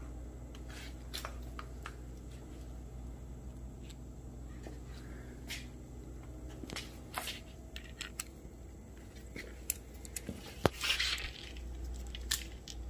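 Small metal engine parts and bolts being handled: scattered light clicks and clinks over a low steady hum, with a brief rustle near the end.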